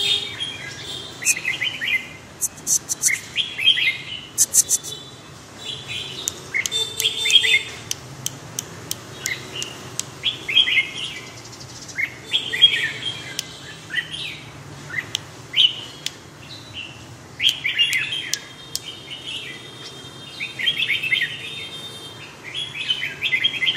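Caged red-whiskered bulbul singing short warbling phrases again and again, one every second or two, with a scatter of sharp clicks in the first half.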